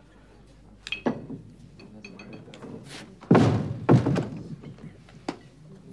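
A door banging shut, heard as a heavy thud a little past halfway, followed by a second thud about half a second later. A lighter, sharp knock comes about a second in.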